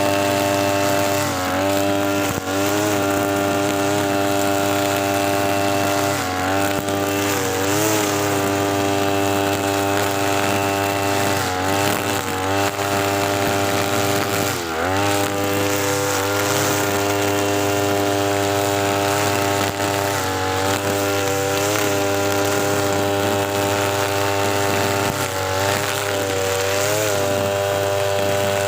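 TB43 two-stroke brush cutter with a nylon trimmer head running at full throttle through thick grass. Its engine note dips briefly a dozen or so times as the line bites into the grass, then recovers.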